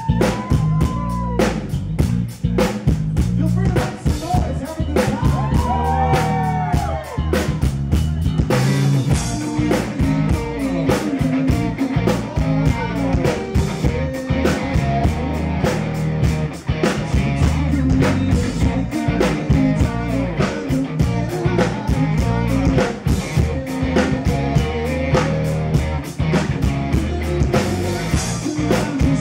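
Live rock band playing at full tilt: a steady drum kit beat and guitar, with a singer's voice over them.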